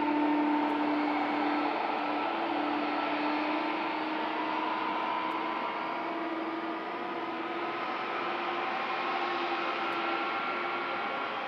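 Jet aircraft engines running: a steady rush with a humming whine and fainter higher whines that drift slowly in pitch.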